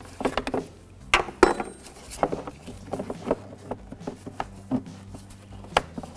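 A 2007 Mazda 3's hard plastic battery cover knocking and clicking as it is worked down over the battery, its plastic ears being fitted into their guides: a scattered series of sharp taps.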